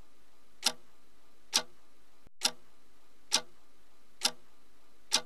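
A clock ticking steadily, six sharp ticks evenly spaced a little under a second apart, over a faint hiss.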